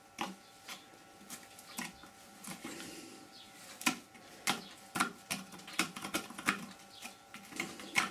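Irregular light knocks and taps on a wooden blank, sparse at first and coming every half second or so in the second half, over a faint steady hum.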